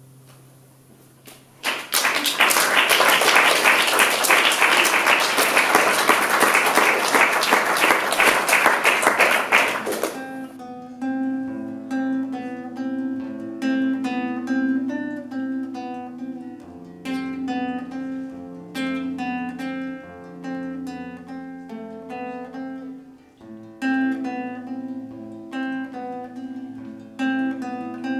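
An audience applauding for about eight seconds. Then a nylon-string classical guitar starts a fingerpicked passage of separate plucked notes and chords.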